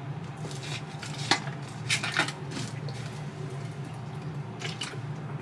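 A plastic drink bottle being handled and its cap worked: a few sharp clicks and crackles, one about a second in, two more around two seconds, and another cluster near the end.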